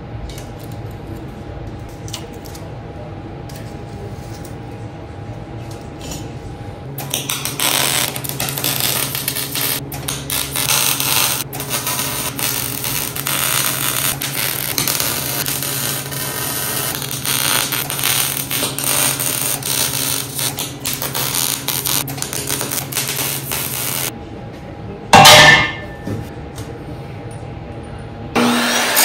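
Wire-feed welder arc crackling steadily for about seventeen seconds as steel square tubing is welded, starting about seven seconds in after a low steady hum and cutting off suddenly. A short, loud knock follows a second later.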